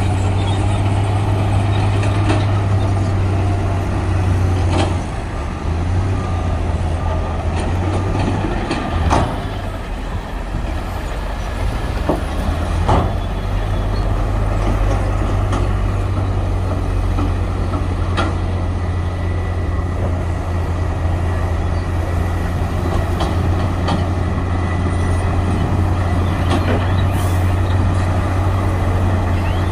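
Heavy diesel earthmoving machinery at work: a Shantui DH17C2 bulldozer and a dump truck running with a steady low drone. A few sharp metallic clanks come through, around 5, 9 and 13 seconds in.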